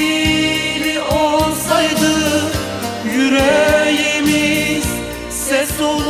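Music: a song passage with a wavering, ornamented melody line over a steady beat.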